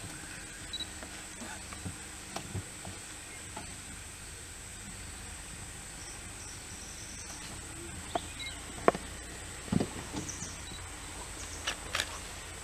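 Steady forest background with a constant high insect-like drone, and a few sharp cracks and low thumps in the second half as Asian elephants move through the undergrowth.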